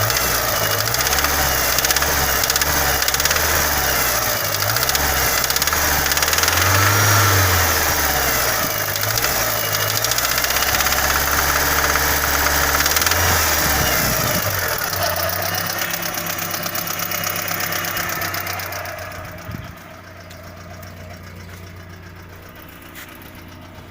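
Audi 80 B3's 1.8-litre four-cylinder petrol engine running with a knock, its speed rising and falling a few times before it settles much quieter near the end. The owner suspects a spun bearing shell.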